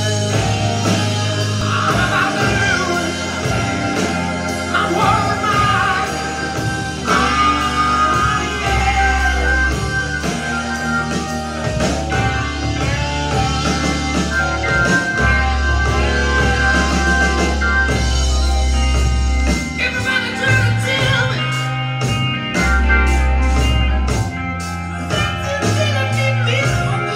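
A rock song with singing and guitar over long deep bass notes, played from a spinning vinyl record through vintage Pioneer CS-757 speakers driven by an Akai AM-U3 amplifier.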